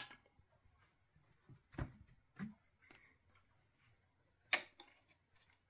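A few faint, isolated clicks and small knocks of metal on metal as a brass workpiece is nudged into line in a steel machine vise; the sharpest click comes about four and a half seconds in.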